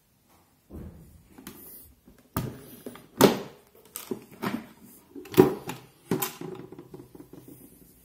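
Handling of a Conti 200 portable typewriter's carrying case: it is set down, its two metal latches are clicked open and the lid is lifted off. This gives a string of knocks and clicks, the sharpest about three and five seconds in, with rustling between.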